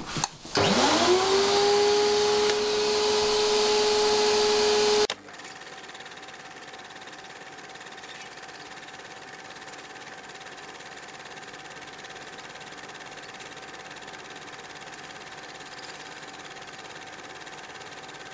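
Electric router motor spinning up about half a second in, its whine rising quickly and then holding steady at full speed. It cuts off abruptly near five seconds in, leaving a much quieter steady hum with a faint whine.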